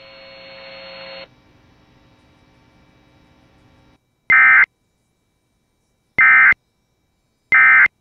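Emergency Alert System end-of-message signal: three short, loud bursts of SAME digital data tones, each about a third of a second long and a second or two apart. A faint steady hum comes before them.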